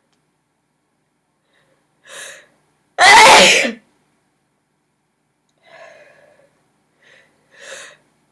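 A woman sneezing during a sneezing fit: a faint intake of breath, then one loud sneeze about three seconds in, followed by short gasping breaths.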